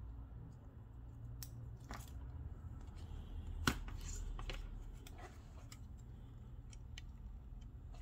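Scattered small clicks and taps from handling a tablet under repair, as the screen's flex connector is pressed onto the board and the display panel is laid over the frame. One click a little under four seconds in is sharper than the rest, and a low steady hum runs underneath.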